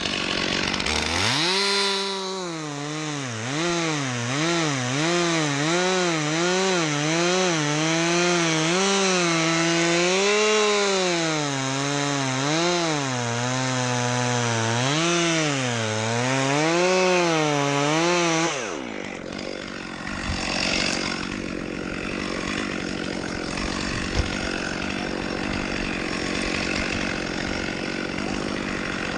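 Chainsaw revved up about a second in and cutting through dead birch wood, its engine pitch rising and sagging as it loads in the cut. It drops off after about eighteen seconds, leaving a steady rushing noise of machinery.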